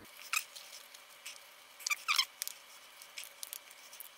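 Small pneumatic scooter tyre being worked off its wheel rim by hand and with a screwdriver: a few short rubbery squeaks and scrapes, the loudest about two seconds in.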